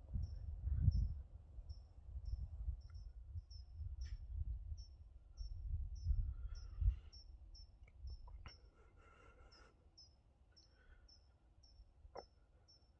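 Short high-pitched chirps repeating evenly, about two or three a second, typical of an insect, over a low rumbling noise that fades after about eight seconds, leaving it quiet apart from the chirps.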